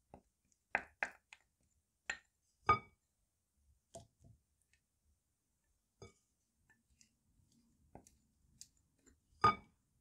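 Scattered clinks and taps of small glass bowls and a wooden spoon against a glass mixing bowl as ingredients go in, with the loudest knocks near three seconds and near the end.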